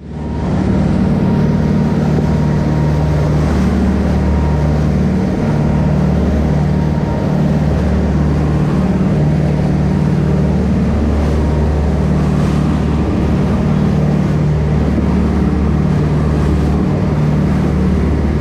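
Motorboat engine running steadily at speed, a constant low drone, with the wake rushing and splashing along the hull.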